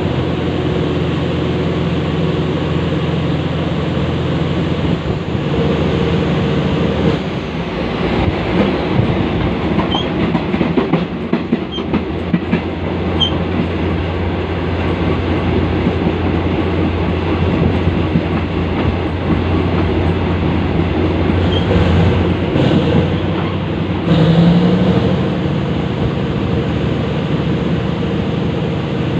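GE diesel-electric locomotive No. 4042's engine running steadily under load, heard from the coach coupled right behind it, along with the wheels rolling on the rails. The rail clatter is rougher for a stretch about a third of the way in, and the engine note swells briefly about three quarters of the way through.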